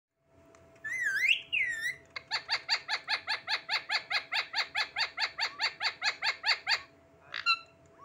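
Indian ringneck parakeet calling: two calls that waver up and down in pitch, then a rapid, even run of sharp repeated calls at about five a second for some four seconds, and one last short call near the end.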